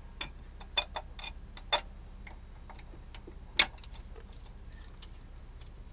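Irregular metallic clicks and taps of hand tools and fittings on a marine generator's raw-water impeller pump as its cover plate is worked on. About seven sharp ticks come close together in the first two seconds, and the loudest single click falls about three and a half seconds in.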